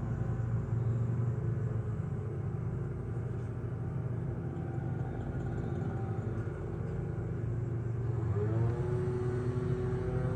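Lawnmower engine running steadily. About eight seconds in, its pitch rises as the engine speeds up, then holds at the higher speed.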